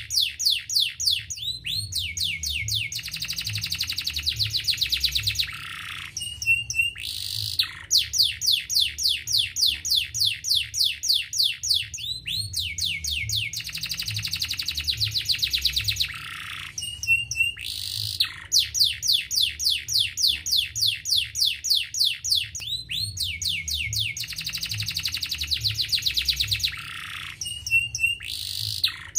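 Domestic canary singing: rapid trills of quick falling notes alternating with a buzzy rolling phrase and a few short high chips, the same sequence repeating about every eleven seconds. A low hum runs underneath.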